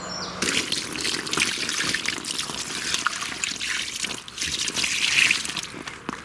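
Water poured over a mirror carp lying in a wet unhooking mat, splashing and trickling steadily. It starts about half a second in.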